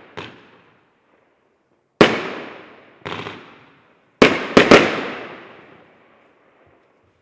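A 20-shot consumer fireworks battery (cake) firing its last shots: sharp bangs with long echoing tails, a single report about 2 s in, a weaker one a second later, then three in quick succession around 4 to 5 seconds in, the echo fading away after.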